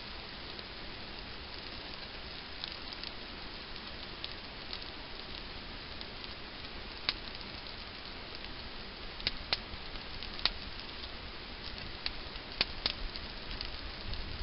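Small fire of thin wood shavings and twigs burning, with scattered sharp crackles and pops that come more often in the second half, over a steady hiss of rain.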